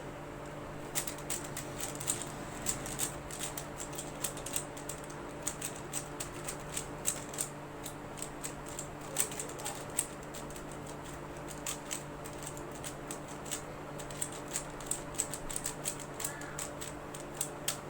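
A plastic 3x3 Rubik's cube being turned fast in a speedsolve. Its layers snap round in a quick, irregular run of clicks and clacks, a few a second, starting about a second in and stopping shortly before the end.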